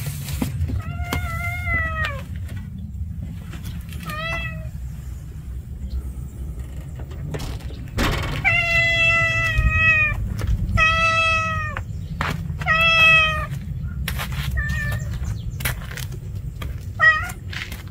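Tortoiseshell street cat meowing about seven times. There is one meow about a second in and a short one near four seconds, then three long meows in a row around the middle, and two brief, clipped calls near the end.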